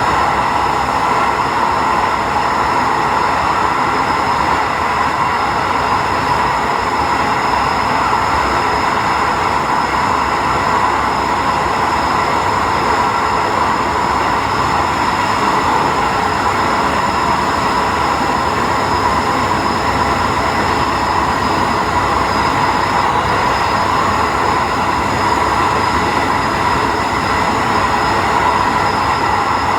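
Diesel railcar running steadily along the line, heard from inside at the front of the train. Continuous rail and running noise carries a few steady whining tones, with no change in pace.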